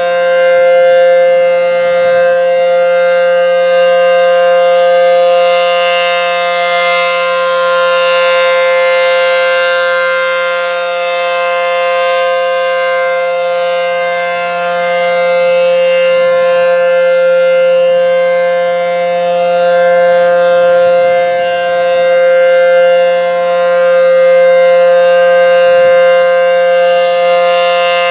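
ACA Howler 3-phase outdoor warning siren at full speed, sounding a steady alert: one held tone with strong overtones. Its loudness slowly swells and fades.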